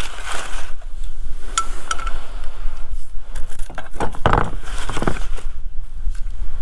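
Metal wheel hoe parts clinking and knocking as they are handled and unpacked from their box: two light clinks with a short ring about one and a half to two seconds in, then a heavier knock around four seconds, with handling rustle between.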